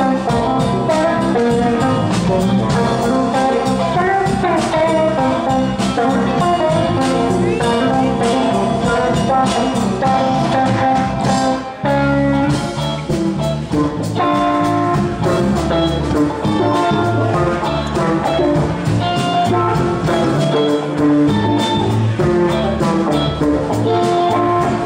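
Live rock band playing: electric guitars over bass and drums, with a brief drop in loudness about halfway through.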